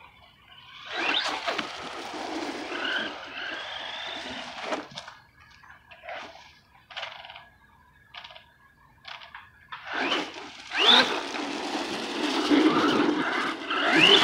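Arrma Big Rock 4x4 BLX v3 RC monster truck on a 6S battery driven in throttle bursts on asphalt: its brushless motor whine rises as it accelerates, over tyre noise. A longer run near the start, a string of short throttle blips in the middle, and the loudest run in the last few seconds.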